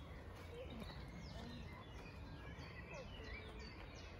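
Faint woodland birdsong: scattered short chirps and whistled notes over a steady background hiss.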